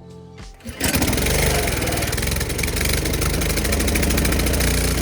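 A pressure washer's petrol engine running steadily, coming in abruptly about a second in as the music ends.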